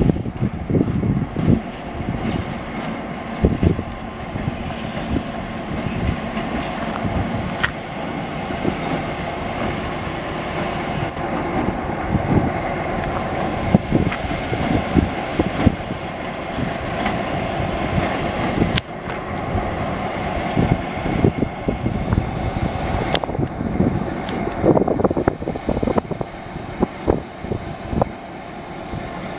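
Y class diesel-electric shunting locomotive running steadily, its engine note held at an even pitch, with irregular low thumps underneath and two sharp clicks in the second half.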